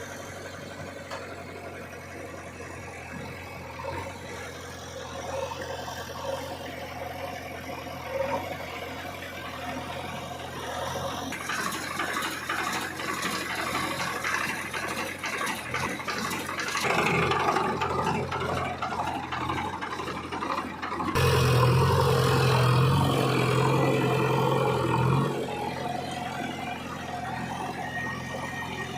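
Diesel engine of a JCB 3DX backhoe loader running as it works, with a rougher, noisier stretch midway. About two-thirds of the way through the engine revs up louder and higher for about four seconds under load, then drops back to a steady run.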